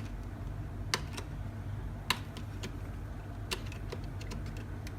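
Scattered light clicks and taps from a graphics card being handled and turned over, with a few sharper clicks about a second, two seconds and three and a half seconds in, over a steady low hum.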